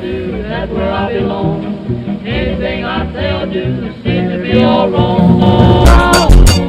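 Music with a singing voice over a bass beat; loud, sharp drum hits come in near the end.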